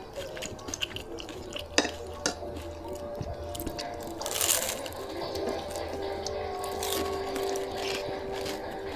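Close-up wet chewing and mouth sounds of people eating fried chicken, with many small clicks and smacks. There is a brief louder hiss about four seconds in, and faint steady tones join from about halfway.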